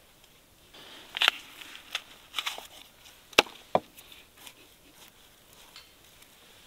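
A knife chopping on a wooden cutting board: about five sharp, irregular knocks, the loudest about three and a half seconds in, then a few faint taps.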